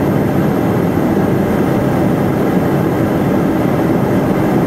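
Steady cockpit noise of an Eclipse 500 light jet on final approach: its twin Pratt & Whitney Canada PW610F turbofans and the airflow over the airframe make an even, low-pitched wash that does not change.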